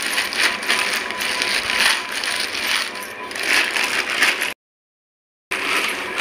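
Plastic bag crinkling and rustling in irregular swells as a lump of dough is kneaded and pressed inside it on a steel plate. The sound drops out completely for about a second near the end.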